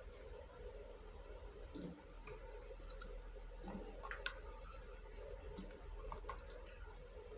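Sparse light clicks and taps of small miniature toy kitchen pieces being handled, the sharpest click a little past the middle, over a faint steady hum.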